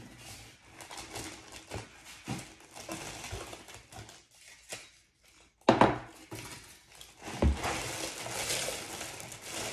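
Ceramic wax warmer being handled: scattered light clinks and knocks, with a sharp knock a little past the middle and another about two seconds later.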